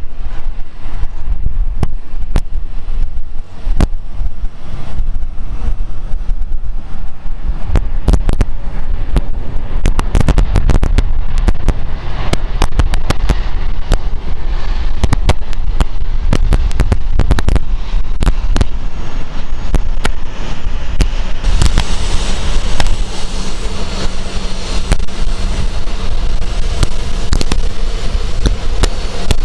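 Boeing 777-200's jet engines during the landing roll-out: a loud, deep rumble full of sharp crackling, typical of reverse thrust. About two-thirds of the way through, the crackling thins and a higher engine whine and hiss take over.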